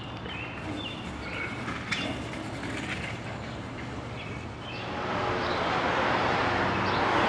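Street ambience: small birds chirping now and then, then the rushing noise of passing traffic growing louder over the last two seconds.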